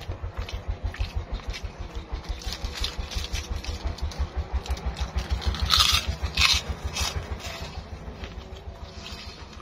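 Eating by hand: fingers scraping rice on a plastic plate, chewing, and two loud lip or finger smacks about six seconds in. Under it runs a steady low throb, several beats a second, like an engine running.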